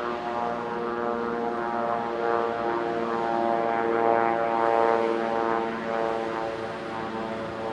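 Case IH Quadtrac track tractor's diesel engine running steadily under load while towing an ejector scraper. It is a steady drone that swells a little around the middle.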